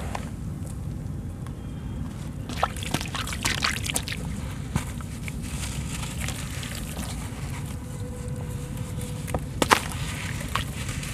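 Hands crumbling and dipping wet sand-cement chunks in a basin of water: sloshing and trickling, with scattered splashes as crumbled pieces drop in, the sharpest about nine and a half seconds in, over a steady low rumble.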